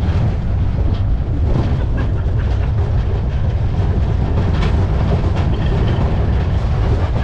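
Zamperla Windstorm roller coaster train running through banked turns, heard from onboard the back car: a loud, steady rumble of its wheels on the steel track, with scattered clicks and rattles.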